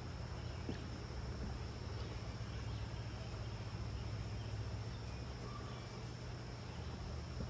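Insects chirring in a steady, high-pitched drone, over a constant low background rumble.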